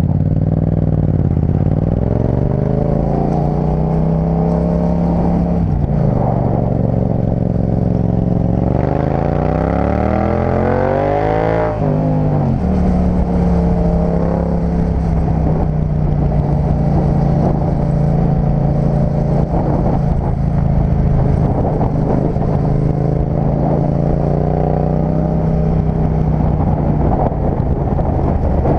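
Yamaha MT-07's 689 cc parallel-twin engine running under way. About eight seconds in, it climbs steadily in pitch under acceleration. Near twelve seconds it falls away sharply, then runs at a steady pitch.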